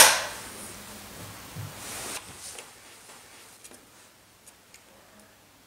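Lithium cells and their terminal connectors being taken apart by hand: one sharp click at the start, softer handling noise for about two seconds, then a few faint ticks.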